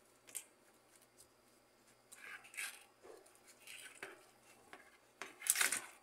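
Hands working the wires of a washing machine's wiring harness: wires rustling and plastic connectors clicking as the wires are pulled apart. A few short scrapes, the loudest a brief rasp near the end.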